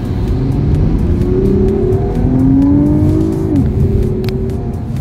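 Porsche Panamera's engine accelerating, heard from inside the cabin: its pitch climbs for a couple of seconds, then drops sharply at an upshift about three and a half seconds in.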